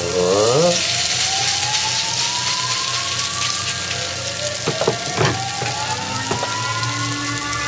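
Shredded-potato latke batter sizzling as it fries in hot oil in a stainless steel pan, with a brief rising pitched sound at the start and a few sharp taps of the spoon against the pan in the second half.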